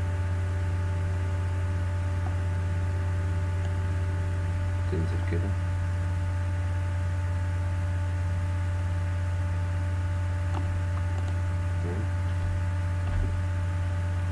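Steady electrical mains hum with several faint steady higher tones, and a few faint clicks.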